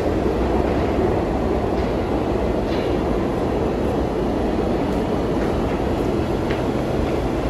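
A New York City subway train rumbling steadily in an underground station as it pulls away down the tunnel, with a couple of faint brief squeals.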